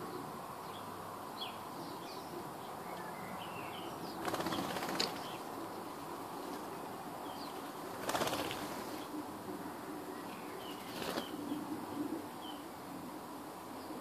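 Birds' wings flapping as they fly down to and up from a lawn: three short flurries of wingbeats, the first about a second long. Faint bird chirps sound in the background.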